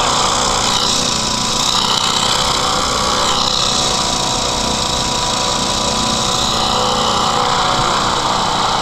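Small hovercraft's engine and propeller running steadily as the craft moves slowly over snow.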